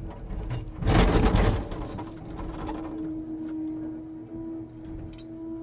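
Scania timber truck's engine running with a steady drone. A loud rushing noise lasts about a second, starting just under a second in.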